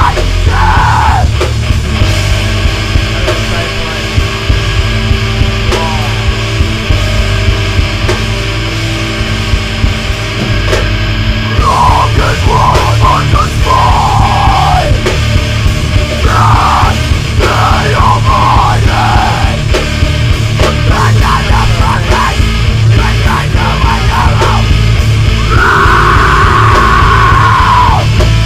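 Metalcore band playing a heavy, loud passage: distorted guitar, bass, drums and keyboards, mastered very hot. The band gets fuller and slightly louder about twelve seconds in.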